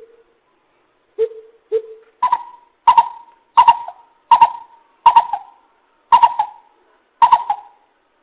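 Coucal giving its series of deep hooting notes, about one to two a second. The first two notes are lower and softer, and from about two seconds in the notes are higher and louder.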